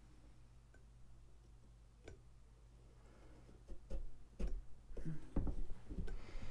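Pumpkin carving: a quiet stretch over a faint steady hum, then from about three and a half seconds in, a run of light clicks and knocks as carving tools cut and tap into a pumpkin.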